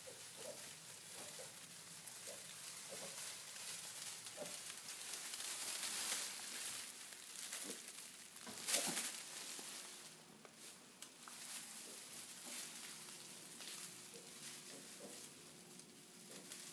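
American Guinea Hog piglets, three days old, shuffling in straw bedding: a steady rustle of straw with faint short piglet grunts now and then. The rustling swells in the middle, with one sharp louder rustle about nine seconds in.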